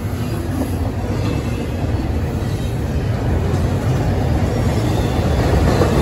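Freight train cars rolling past, double-stack container well cars then autoracks, with a steady rumble of steel wheels on the rails that grows slightly louder.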